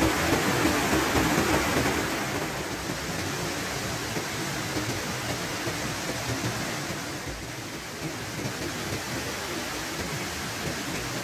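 Steady rush of flowing water over rocks, louder for about the first two seconds and then a little softer.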